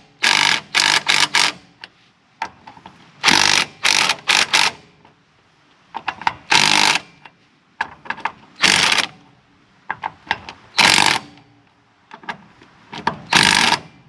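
Bauer 20-volt cordless 3/8-inch compact impact wrench run in short trigger bursts, hammering as it drives lug nuts onto a wheel. There are several quick bursts near the start and another cluster a few seconds in, then single bursts every couple of seconds.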